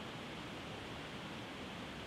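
Water dripping from a rock overhang, many drops blending into a steady, even hiss.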